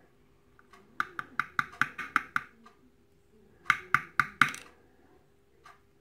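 Small sharp metallic clicks and taps as steel tweezers work the key pins out of a small brass Squire lock core: a quick run of about eight clicks, then a second cluster of about five, then a single click.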